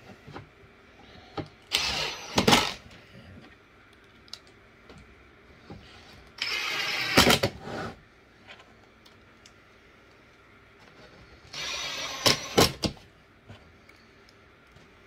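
Cordless drill driving screws into pre-drilled plywood panels, three times, each run lasting about a second and ending abruptly as the screw seats.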